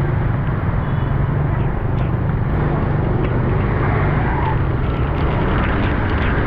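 Motor vehicle driving: an engine running at a steady low hum under a constant wash of road noise, with a few faint ticks.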